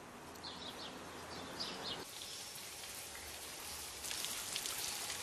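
Faint outdoor ambience: a few short bird chirps over a steady hiss, which grows louder about two seconds in and takes on a light crackle from about four seconds.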